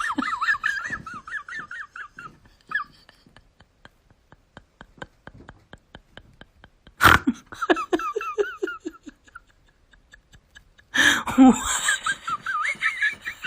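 A person laughing in high-pitched, wavering bursts: three stretches, with a run of faint quick regular ticks in the quieter gap between the first two.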